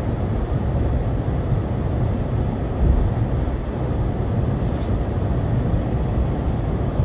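Inside a moving car's cabin: the steady low rumble of tyres on the road and the engine while driving.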